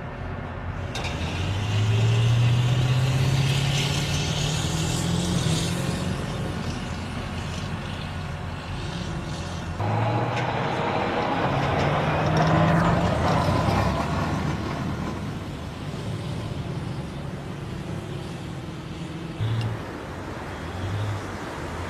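A heavy vehicle's engine running, revving up twice: the pitch climbs about two seconds in and again about ten seconds in. A high hiss rises along with the first surge.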